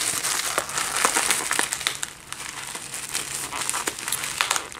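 Plastic bubble wrap crinkling and crackling as it is unwrapped and pulled apart by hand, with scattered sharp crackles.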